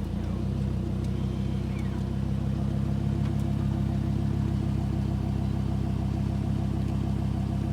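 Lamborghini Huracan's V10 engine, fitted with an aftermarket exhaust, running steadily at low revs with a deep, even note.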